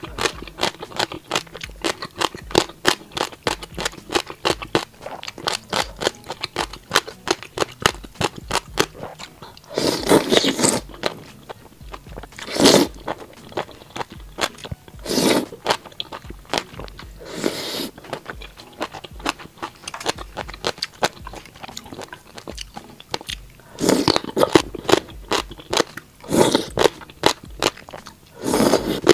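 Close-miked chewing of crunchy gongcai and tripe, a fast run of crisp crunches. About ten seconds in, and several times after, come longer loud slurps of noodles.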